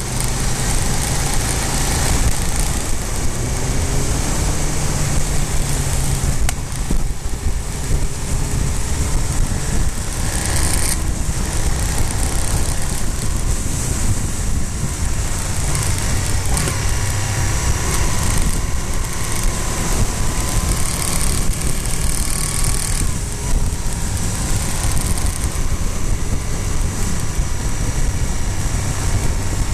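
Motorcycle engine running under way at road speed, its pitch rising and falling with the throttle, under a heavy rush of wind and road noise.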